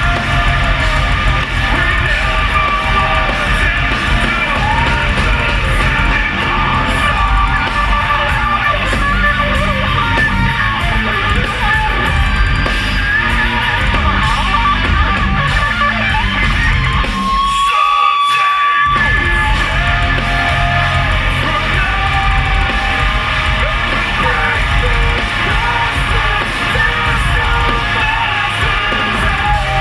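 A heavy metal band playing live: distorted guitars, bass and drums under a shouted and sung lead vocal. About two thirds of the way through, the bass and drums drop out for a second or so under a held note, then the full band comes back in.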